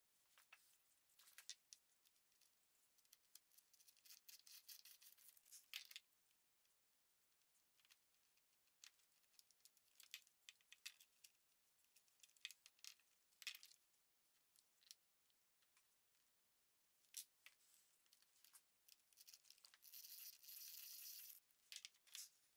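Faint scratching and grinding of a bit boring a pilot hole into wood through a brass hinge's screw hole, in uneven bursts, the longest near the end.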